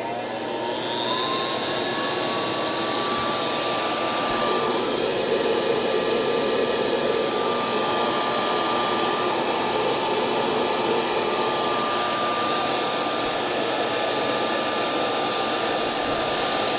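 Fluid-bed coffee roaster's blower motor, salvaged from a dog-grooming hair dryer, spinning up: its whine rises and settles about a second in. It then runs steadily with a rush of air, blowing green coffee beans around the glass roasting chamber, on air alone before the heating elements are switched on.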